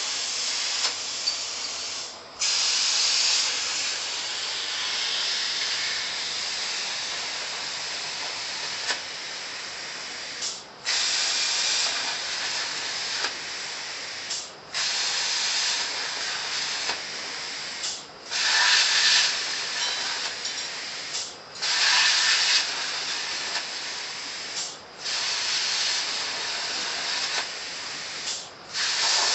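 CNC plasma cutter torch hissing steadily as its 37-amp arc cuts through steel plate. The hiss breaks off briefly seven times and comes back louder each time, as the arc stops at the end of one cut and fires again to pierce for the next.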